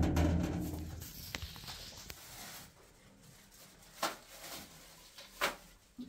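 A wooden window bangs shut, and its rattle dies away over the first second. Then come soft rustling of cloth and a few light knocks as hanging clothes are handled.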